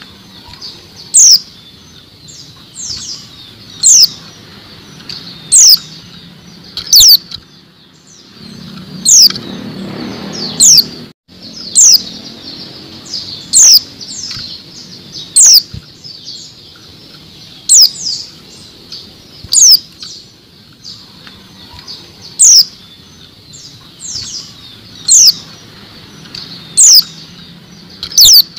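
Female white-eye (pleci) calling: short, loud, high notes, each a quick downward sweep, repeated every one and a half to two seconds.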